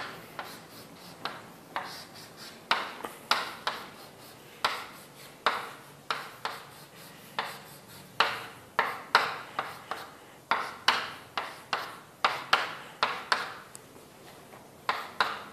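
Short, sharp taps and strokes of writing or drawing, irregular at about one to three a second, with brief pauses.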